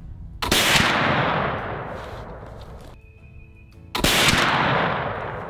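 Two shots from a .36 caliber flintlock squirrel rifle loaded with 35 grains of Swiss 3F black powder, about three and a half seconds apart, each echoing for over a second. Background music plays faintly underneath.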